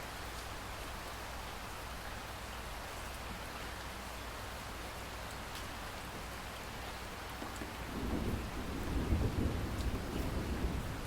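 Steady rain falling, with a low rumble of thunder swelling up about three-quarters of the way through and still rolling at the end.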